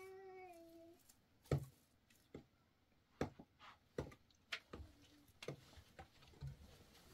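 An animal's drawn-out call trails off about a second in, followed by scattered light knocks and taps.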